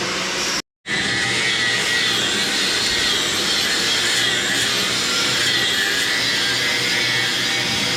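Hand-held grinder running steadily against steel tubing, a continuous whine that wavers slightly in pitch as it works. The sound cuts out completely for a moment under a second in.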